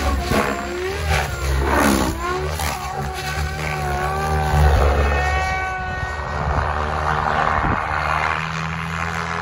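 Goblin 700 electric RC helicopter, driven by an Xnova 4530 motor, flying hard aerobatics: the main rotor and the motor-and-gear whine rise and fall in pitch with each change of load.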